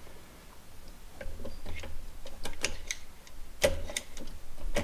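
Scattered light metallic clicks and ticks from hands working the gear and shift parts of an open kei mini truck manual transmission, with a sharper click about three and a half seconds in.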